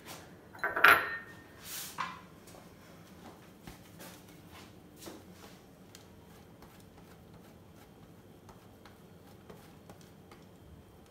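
Kitchenware clattering sharply against the counter about a second in, with a couple of smaller knocks just after, then faint rasping as a block of cheese is rubbed over a flat handheld grater.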